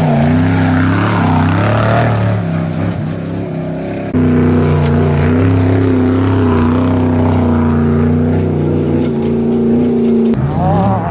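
Trophy Truck Spec off-road race truck engines running loud at high, fairly steady revs as the trucks pull away on dirt. The sound switches abruptly to another truck about four seconds in and changes again near the end.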